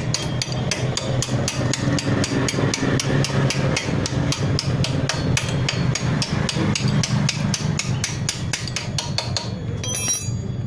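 Hammer blows on metal in a rapid, even rhythm of about four a second, stopping shortly before the end.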